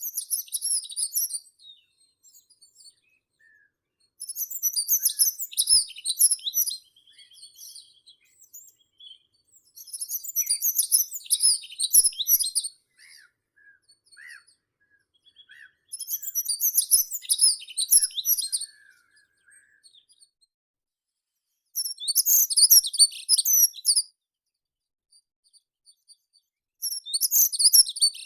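A meadow songbird repeating a high, rapid, twittering song phrase of about two to three seconds roughly every six seconds, with faint, lower chirps in between.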